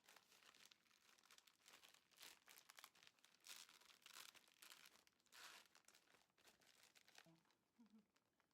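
Faint crinkling and rustling of a plastic bag being handled, in irregular bursts that die away near the end.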